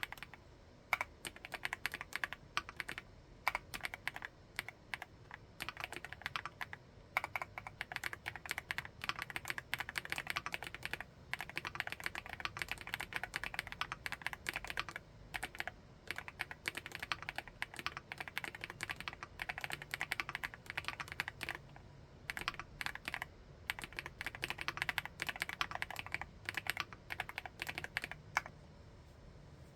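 Typing on an MCHOSE GX87 full-aluminium tenkeyless mechanical keyboard with TTC Flaming Orange switches: runs of rapid keystrokes broken by short pauses, stopping shortly before the end.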